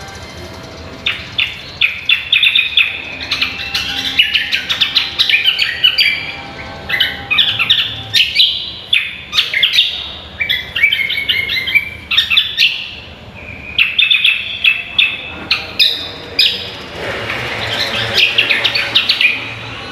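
Greater green leafbird (cucak kombo) singing a fast, varied run of chirping and warbling phrases, in bursts separated by short pauses.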